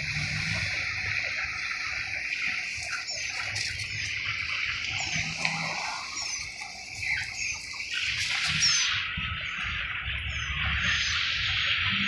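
Outdoor street ambience: birds chirping in short, repeated, falling calls over a steady hiss and a low rumble. The hiss grows louder about two-thirds of the way through.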